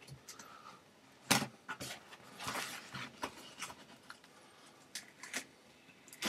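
Plastic protective sheet being peeled off a computer monitor's screen: irregular crinkling and rustling, with a sharper crackle about a second in.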